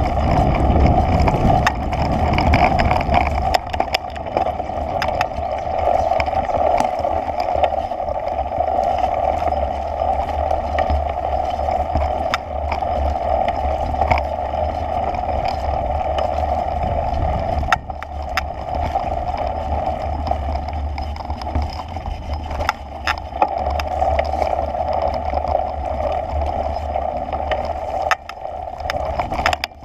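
Steady drone with a low rumble and scattered knocks and clicks: travel noise picked up while moving along a bumpy dirt trail. The drone dips briefly a little over halfway through.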